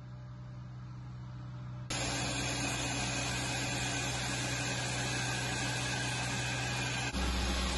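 A low hum, then about two seconds in an abrupt switch to a louder, steady running noise of an armoured air-defence vehicle's engine, which deepens near the end.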